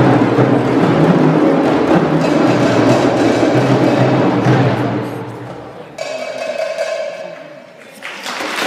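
An ensemble of djembe hand drums playing a fast, dense rhythm that fades out about five seconds in, ending the piece; near the end, applause begins.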